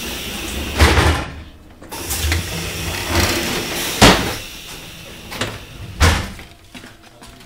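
Passenger-coach end doors being pushed open and banging shut as someone walks between the carriages, with a steady hiss in the first second. There is a thump about a second in, a sharp loud bang about four seconds in and another bang about six seconds in.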